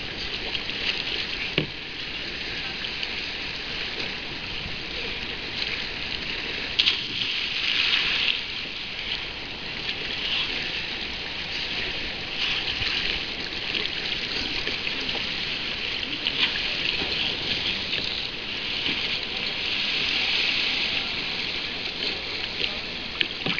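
Seawater splashing and lapping around a kayak as it is paddled, a steady hiss that swells every few seconds with the paddle strokes, with a few small knocks.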